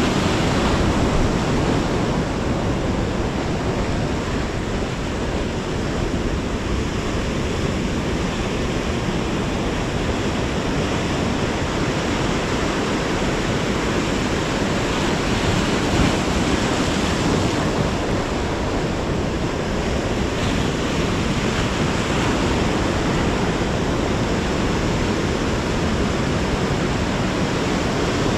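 Steady rushing noise of breaking surf, with wind buffeting the microphone.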